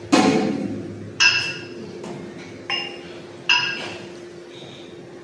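Metal gym weights clinking: four ringing metallic clinks, unevenly spaced, over a steady low hum.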